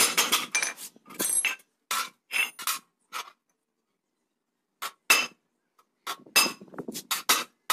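Hand hammer striking the edge of a thin iron sheet laid over a steel angle, folding it over the angle's edge: sharp metallic clinks in quick irregular runs, with a pause of about a second and a half in the middle.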